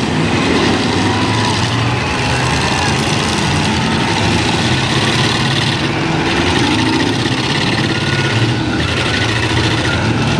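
Several demolition derby pickup trucks' engines running and revving together in a loud, continuous din, with no single crash standing out.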